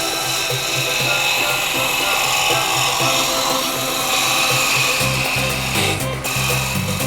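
Wood turning on a Bauer benchtop lathe: a turning tool cutting into the spinning wood with a steady scraping hiss. Background music with a beat plays underneath, its bass getting stronger about five seconds in.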